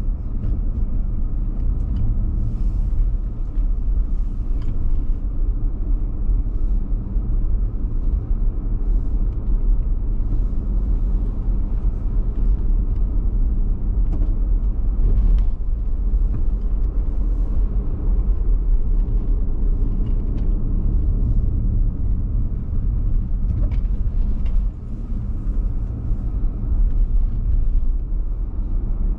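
Road noise inside a moving car's cabin: a steady low rumble from the engine and tyres, with scattered faint clicks and ticks.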